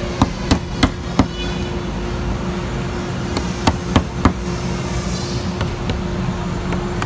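A hammer taps a thin scraper driven into the cut along the wooden beading of a door panel, working the bead loose. There are four quick sharp taps about a third of a second apart, a pause, then three more.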